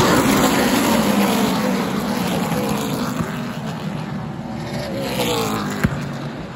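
Super late model stock cars' V8 engines racing past in a pack, the pitch dropping as the nearest car goes by and the sound slowly fading, with another car sweeping past about five seconds in. A single sharp click near the end.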